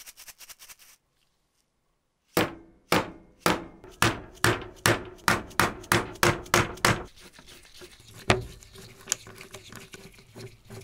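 A mallet strikes a hand impact driver seated in a rusted screw of a cast-iron handle bracket, driving it to loosen the seized screw. About a dozen sharp blows come two or three a second, then the sound drops to quieter scraping with one or two lighter knocks.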